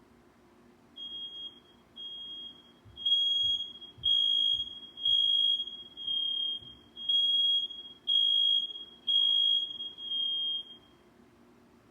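Household smoke alarm sounding a series of ten high-pitched beeps, about one a second, the first two quieter than the rest, set off as the alarms are reset.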